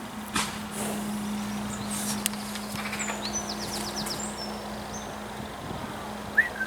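A horse at close range, with a few sharp knocks and some shuffling. A steady low hum runs underneath, and a bird chirps briefly a few times.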